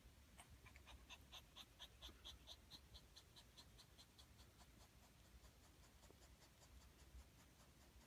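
Golden retriever puppy breathing fast and shallow through its open mouth in its sleep, a faint, even run of quick puffs about five a second, strongest in the first half and fading after. It is pant-like breathing although the room is not hot, which the owner takes for the precursor of snoring.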